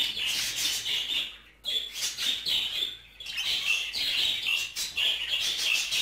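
Budgerigars warbling and chattering: a rapid, continuous run of chirps and clicks, broken by two short pauses about 1.5 and 3 seconds in.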